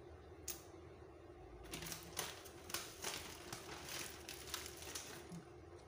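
Plastic bag of raw chicken breasts crinkling and crackling in an irregular run as a hand pulls meat out of it, starting about two seconds in and stopping shortly before the end, with a single sharp click about half a second in.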